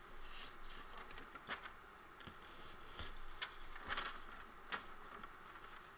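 Paper rustling and crinkling in short, faint scuffs as journal pages are handled and folded into a pocket.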